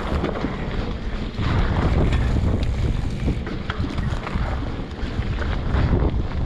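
Heavy wind buffeting the microphone with a low rumble and scattered clicks and rattles, as when moving fast down a rough dirt trail; it grows louder about a second and a half in.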